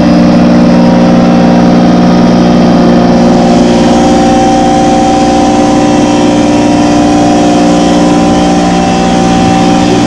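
Busch R5 rotary vane vacuum pump and its electric motor running steadily in a maple sap pump house: a loud, even machine drone with several steady hum tones.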